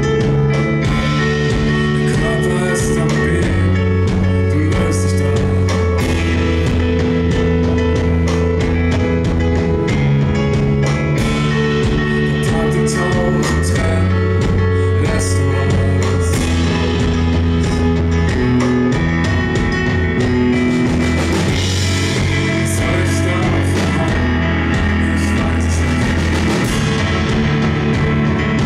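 Live band playing an instrumental passage: keyboard piano chords with bass guitar and drum kit, loud and steady, the chords changing every couple of seconds.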